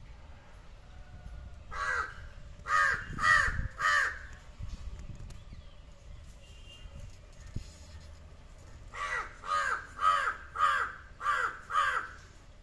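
Large-billed (jungle) crow cawing: a run of four harsh caws, then after a pause of about five seconds a second run of six.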